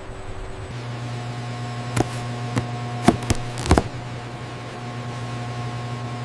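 Steady low machine hum with a faint higher whine, and five sharp clicks or knocks between about two and four seconds in.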